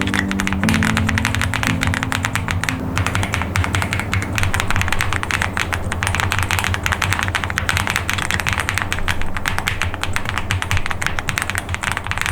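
Fast, continuous typing on a Meletrix Zoom98 mechanical keyboard: a dense, rapid stream of keystroke clicks. Background music fades out about three seconds in.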